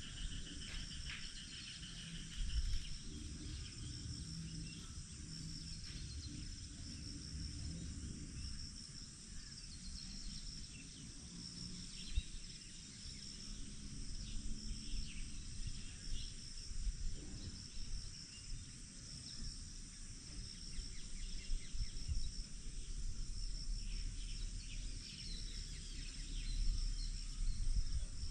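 Insects chirping and trilling steadily in high, pulsing tones over a low, uneven rumble, with a few faint ticks.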